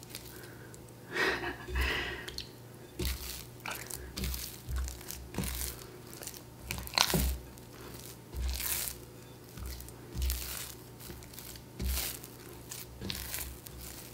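Hands kneading a wet, high-hydration sourdough dough in a bowl: irregular sticky squelching and tearing sounds, about one a second, as the dough is pinched, pulled and folded.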